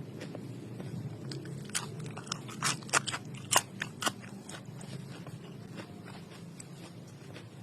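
A person chewing raw young pumpkin shoot stems, with a run of crisp crunches in the middle few seconds over a steady low hum.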